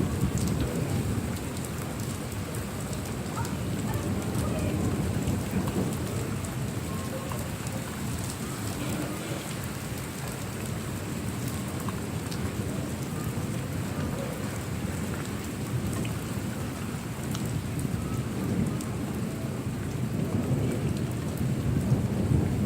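Thunderstorm: steady rain with a continuous low rolling rumble of thunder, swelling about the start and again near the end.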